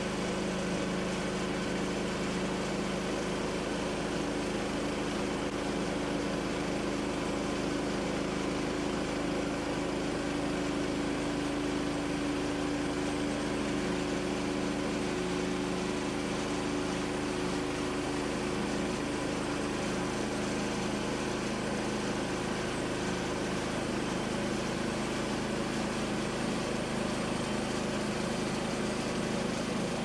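Woodland Mills HM130MAX bandsaw mill running steadily, its small engine driving the band blade through a ponderosa pine cant as boards are sawn off.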